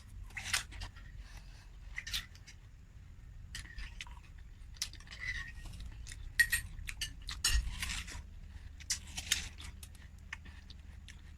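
Watermelon being eaten close to the microphone: wet bites and chewing with many scattered small clicks and clinks, irregular and brief.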